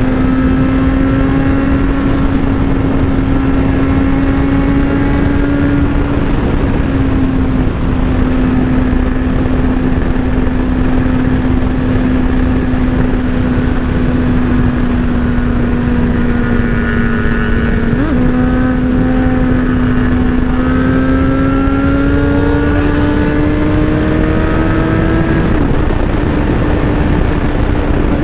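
Sport motorcycle engine running at fairly steady revs while riding, over a heavy rushing wind noise. The pitch dips briefly twice and climbs gradually for several seconds about two-thirds of the way through.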